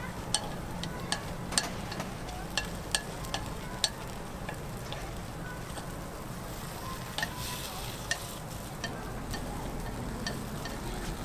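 Batter sizzling in a hot chrysanthemum-bread (gukhwappang) mold, with irregular sharp clicks of a metal pick tapping and scraping against the mold as the cakes are pried out and turned.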